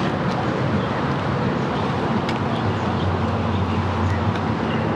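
Steady outdoor background noise with a low droning hum underneath and a few faint ticks.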